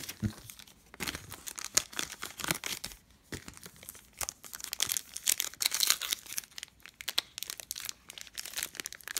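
A Donruss Optic foil trading-card pack being crinkled and torn open by hand: an irregular run of crackles and rips that starts about a second in.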